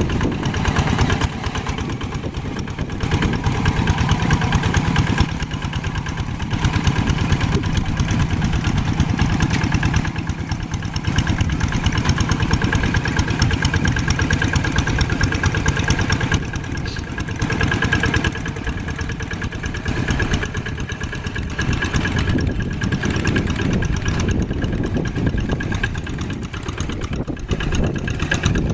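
Old tractor engine running steadily, with a rapid, even firing beat that rises and dips a little in level.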